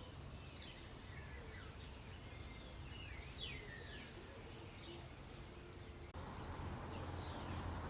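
Faint birds chirping over a low steady background hum, with the background noise stepping up slightly about six seconds in.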